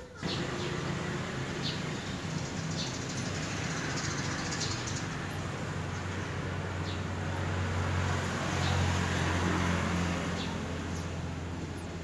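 A steady low engine drone with a hiss of road noise, a little louder about two-thirds of the way through, and faint short high bird chirps every second or two.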